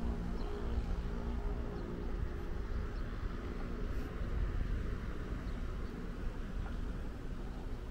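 Steady low rumble with a faint engine hum that fades out in the first second.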